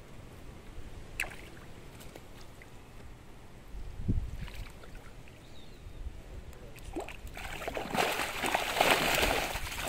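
Tilapia caught in a cast net thrashing and splashing in shallow water as the net is pulled to the bank. The first part holds only faint water sounds and a few small knocks from handling the net; the splashing starts about three-quarters of the way through and quickly grows loud.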